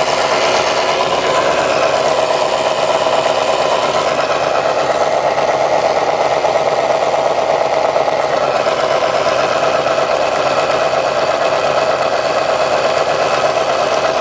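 Small DC electric motor driving the scale fan gearbox and drive shafts of a 1/6 scale model tank, running steadily with a whirring hum of motor and gears.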